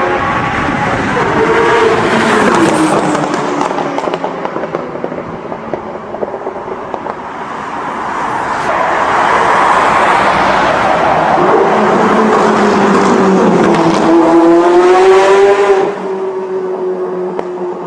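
Ferrari F50 and F40 supercar engines revving hard and accelerating, their pitch climbing and falling again and again through the gears. Near the end the sound drops off suddenly to a lower, steady engine tone.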